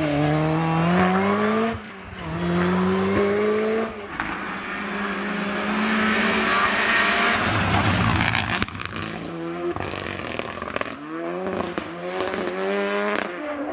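Rally cars at full throttle: first a Lotus Exige, then a Renault Clio. Each engine note climbs and drops back at every upshift, with a stretch of tyre and gravel noise in the middle as a car slides through a bend. Quick rising revs through the gears come near the end.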